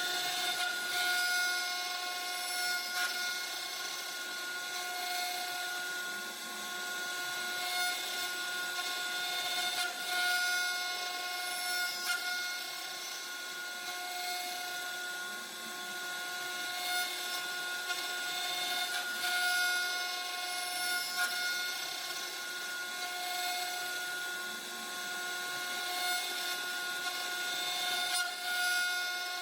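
CNC wood router's spindle whining steadily as its cutter machines wood. The cutting noise swells and eases every few seconds as the tool moves through the workpiece.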